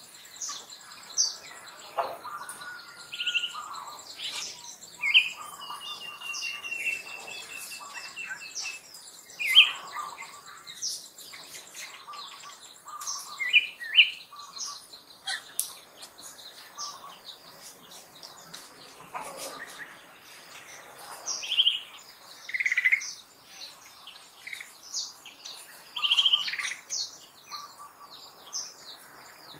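Wild birds chirping and calling: scattered short high notes of several kinds, with one longer wavering trill a few seconds in.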